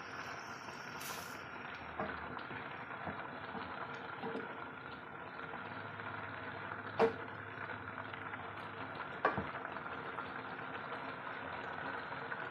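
Pork humba's soy-and-vinegar braising sauce boiling steadily in an open pot while a wooden spatula stirs it, with a few light knocks of the spatula against the pot.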